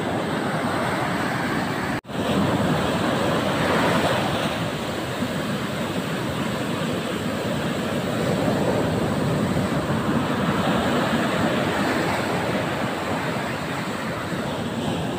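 Sea waves breaking and washing up a beach: a steady rush that swells and eases. The sound drops out for an instant about two seconds in.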